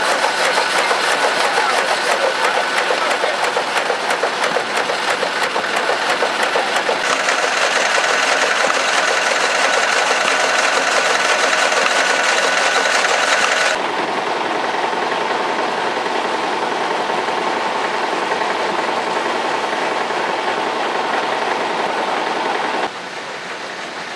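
Old engine-driven machinery running: a fast, dense mechanical clatter at first, then steady engine sounds. The sound changes abruptly three times.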